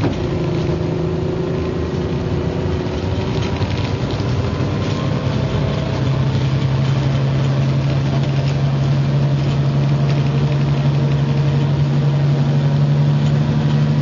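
Diesel engine of Midland Bluebird MCW Metrobus double-decker 884 running, heard from on board. About six seconds in its note drops and grows louder, then holds steady.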